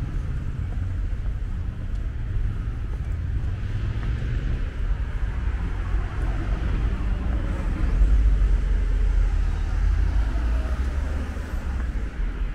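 City street traffic: cars driving past with tyre and engine noise over a steady low rumble, which swells about eight seconds in.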